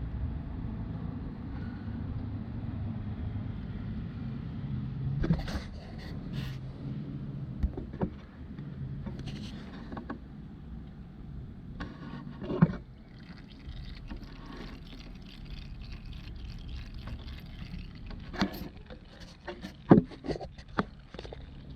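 Warm engine oil draining from a Honda Grom's sump into an oil drain pan, a steady pour of liquid, with a few sharp knocks and clicks scattered through.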